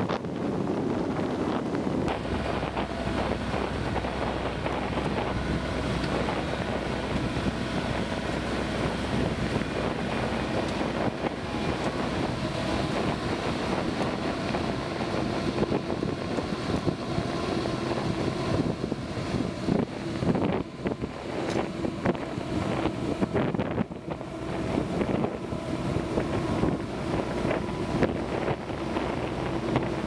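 Ultra Heavy-lift Amphibious Connector prototype's engines running steadily, under heavy wind noise on the microphone and breaking surf.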